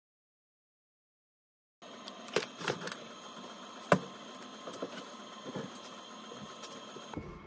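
Dead silence for about two seconds, then workbench handling sounds: scattered small clicks and taps of screws and a cordless drill being handled, with a sharper knock about four seconds in as the drill is set down on the bench.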